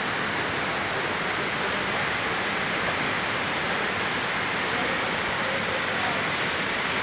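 Waterfall with several streams falling down rock ledges into a plunge pool: a steady, even rush of water.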